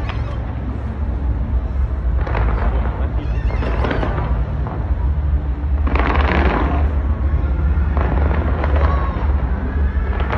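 Large fireworks display: a continuous deep rumble of bursts, with louder crackling volleys about two, four and six seconds in.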